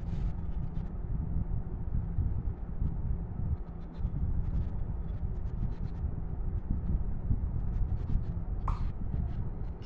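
Colored pencil scratching on paper in quick, repeated coloring strokes, over a steady low background rumble. One brief, sharper sound comes near the end.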